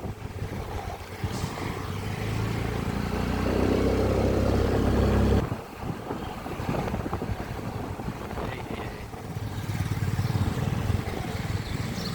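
Motorcycle engine running on the move, with wind and road noise. The engine note builds for a few seconds, grows loudest about four to five seconds in, then drops off sharply, and rises again more weakly near the end.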